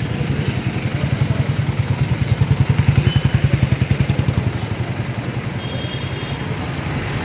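A small motorcycle-type engine running with an even, rapid putter, growing louder a couple of seconds in and easing off again.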